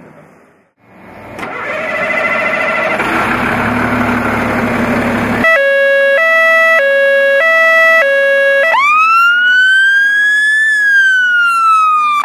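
A fire engine's electronic siren being tried out. After a loud rushing noise for about four seconds, it sounds a two-tone hi-lo pattern, switching pitch about every half second. A little past halfway it changes to a wail that slowly rises, then falls.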